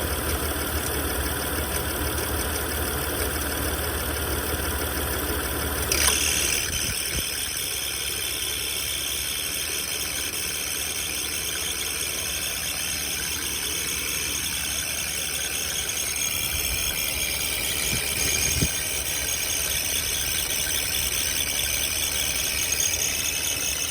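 Honda engine idling with the AC on, with a squealing, chirping noise from around the serpentine belt tensioner. The owner finds it comes only when the AC is running. About six seconds in there is a click and the sound changes abruptly.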